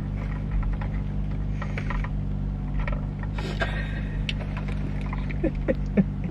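Steady low hum of an idling car engine heard inside the car's cabin, with a couple of brief rustles and small clicks from handling a drink cup and straw.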